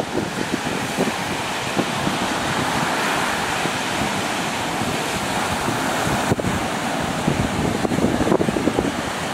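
Rough surf breaking on a sandy beach, a steady rush of waves, with strong wind buffeting the microphone in gusts that grow stronger near the end.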